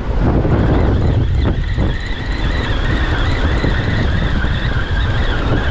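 Wind buffeting the microphone and surf washing over the rocks. From about two seconds in, a steady high whine joins from the Adrenalin Bluesurf 9000 spinning reel as the fish is brought in.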